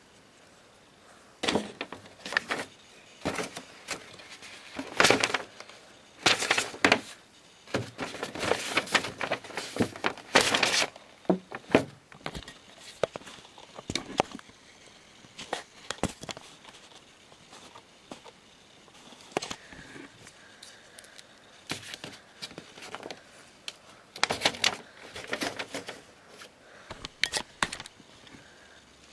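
Irregular clusters of short plastic clicks and knocks mixed with paper rustling and crinkling, from Lego pieces and a taped sheet of paper being handled or struck. The densest, loudest run comes in the first half, with quieter spaced clicks after it and another cluster near the end.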